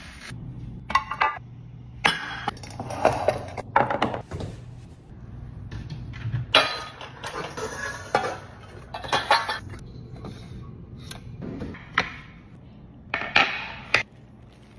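Kitchen clatter: a stainless steel mixing bowl and other dishes being handled and set down on a counter, with irregular clinks, knocks and scrapes.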